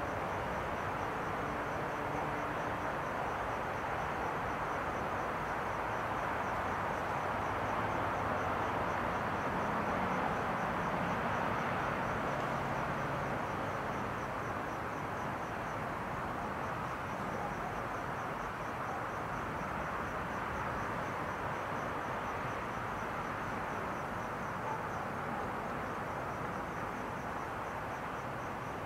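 Cricket chirping in an evenly repeating high-pitched pulse over a steady background hiss.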